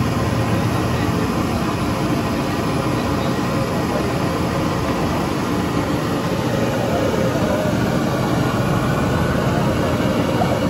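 Steady street ambience: a continuous rumble of traffic with indistinct voices mixed in.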